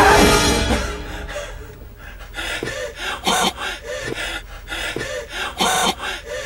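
A man straining and gasping: a strained cry trails off in the first second, then a run of short, harsh panting gasps, the two loudest about three and five and a half seconds in.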